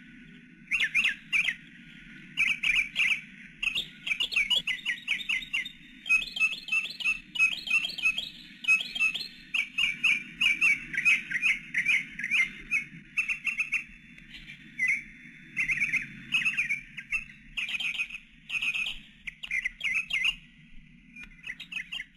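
Bird squawks and chirps in quick bursts, a cluster about every second, over a low steady hum.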